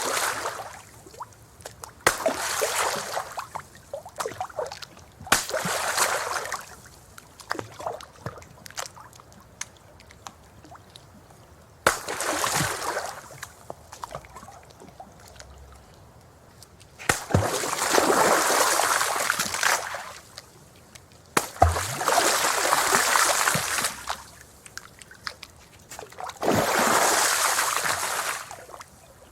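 Stones and rocks thrown into water, about seven separate splashes at uneven intervals: each lands with a sharp plop and is followed by one to three seconds of splashing and sloshing, the later ones longer.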